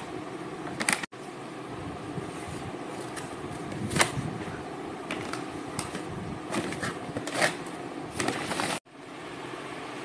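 Clothes and plastic shopping bags rustling in short bursts as garments are handled and stacked, over a steady background hum. The sound cuts out abruptly twice, about a second in and near the end.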